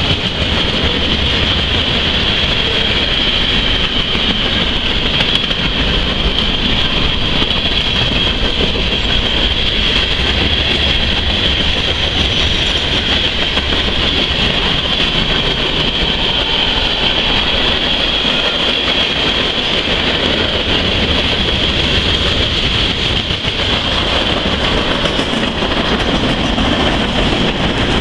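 Freight train cars rolling past at speed: a loaded mixed freight of flatcars, tank car, covered hoppers and boxcars making a steady heavy rumble, with a steady high-pitched tone above it.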